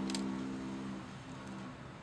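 A steady low hum of several even tones that fades out between one and two seconds in, with a light click of bamboo sticks being handled near the start.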